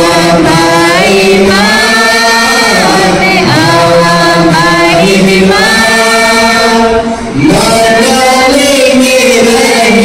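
A man singing a hymn into a handheld microphone, amplified through a PA system, in long held and gliding notes with a short break about seven seconds in.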